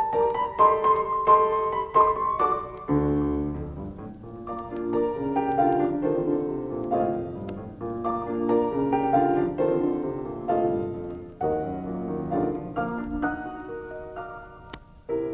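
Solo piano playing a lively silent-film accompaniment of quick struck notes and chords, with a deep bass chord about three seconds in.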